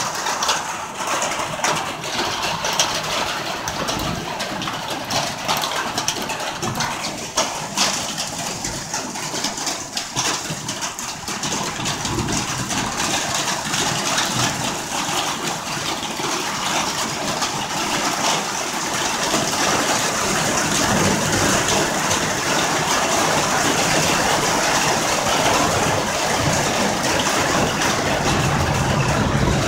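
Heavy thunderstorm rain and wind: a steady, dense hiss that grows a little louder over the second half.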